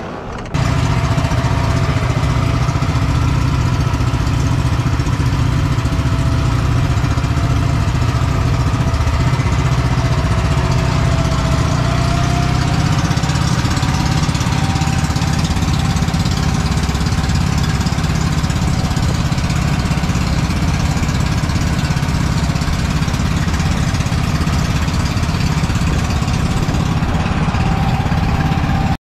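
Boat engine running steadily at constant speed, a continuous loud drone with a steady pitch.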